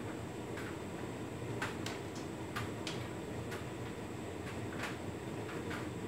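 Hotpoint Ultima S-Line tumble dryer running a Standard Cottons cycle: a steady hum from the motor and turning drum, with light irregular clicks from the tumbling load, about ten in six seconds.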